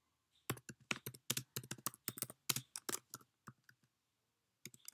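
Typing on a computer keyboard: a quick, irregular run of key clicks that thins out and stops briefly about four seconds in, then a few more keystrokes near the end.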